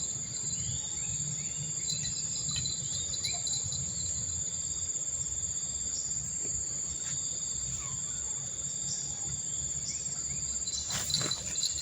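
Steady shrill chorus of insects, several unbroken high tones held together, over a low rush of flowing river water. A few sharp clicks come near the end.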